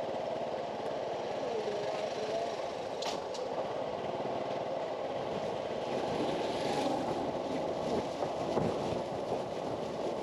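Small vehicle engine running steadily under the ride, with a motorcycle passing close by about six seconds in.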